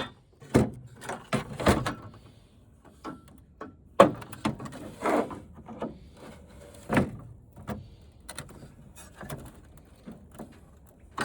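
Irregular knocks, clunks and short scrapes of tools against the plastic and metal parts of a flat-screen TV being dismantled, the sharpest knock about four seconds in.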